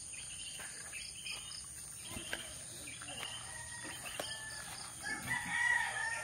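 Backyard ambience: a steady high-pitched drone of insects with small birds chirping over and over, and a rooster crowing near the end.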